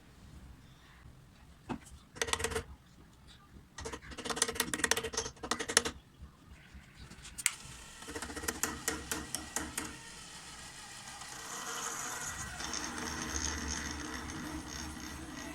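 A small motor turning gears in short runs, with rapid clicking and rattling each time, then a steadier whir with rattle from about eleven seconds in.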